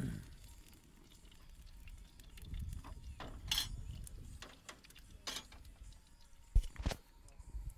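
A man snoring, with a low rasping snore swelling about two and a half seconds in and lasting a couple of seconds. A few sharp clicks and knocks come through it, the loudest two close together near the end.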